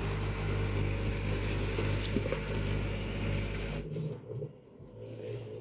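Washing machine drain pump running as the water drains out after the spin, a steady hum that cuts off abruptly about four seconds in, leaving a fainter hum.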